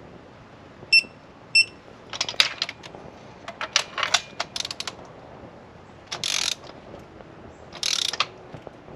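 Ratchet wrench clicking in irregular runs while spark plugs are turned in, with two half-second rasps of fast ratcheting near the end. Two short metallic pings come about a second in.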